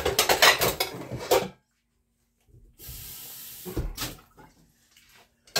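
Metal cookware clattering as a frying pan is pulled out, then a short steady hiss of under a second and a single knock.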